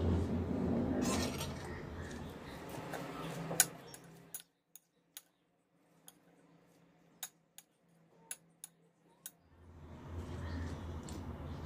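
Steel spoon clinking against a ceramic bowl while a chickpea salad is tossed: scattered light clinks, roughly one a second. A steady low hum runs under the first few seconds, then drops away.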